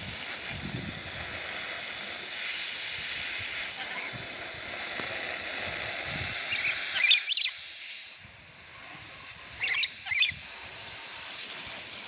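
Rainbow lorikeet screeching in short shrill bursts, a cluster about seven seconds in and two more near ten seconds. Under the calls, a steady hiss of water spraying onto its cage fades away about halfway through.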